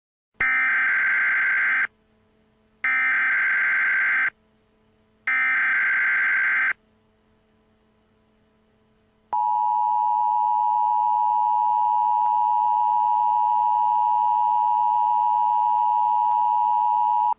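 Emergency Alert System SAME header: three bursts of rapid warbling digital data tones, each about a second and a half long, with short gaps between them. About nine seconds in, the steady two-tone EAS attention signal starts and holds; together they mark the start of an emergency alert broadcast.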